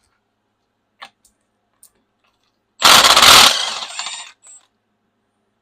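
A few light clicks, then about three seconds in a loud, brief burst of rapid metallic rattling that tails off with a thin high ring.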